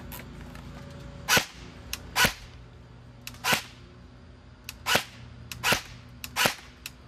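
Airsoft SCAR-L electric rifle firing single shots on semi-auto: six sharp cracks of the gearbox cycling, spaced unevenly about a second apart, with fainter clicks in between.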